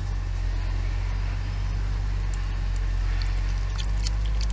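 Tractor engine running steadily, a low drone that holds the same pitch throughout.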